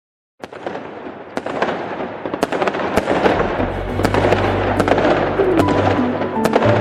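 Intro of a background music track: a dense crackling noise full of sharp cracks, like fireworks, starts suddenly and builds in level, with a low bass tone coming in about halfway.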